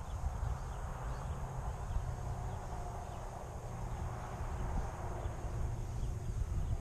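Wind buffeting the microphone, a steady gusty rumble.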